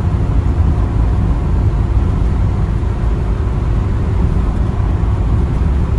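Steady low rumble of engine and tyre noise inside the cab of a box van driving along a highway.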